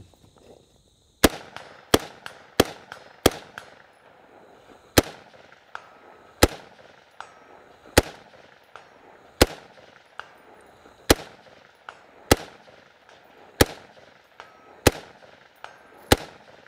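Unsuppressed AR-15-style rifle fired semi-automatically, thirteen shots in all. Four come quickly, about two thirds of a second apart, then single shots follow roughly every one and a half seconds. Each is a sharp crack with a short echo.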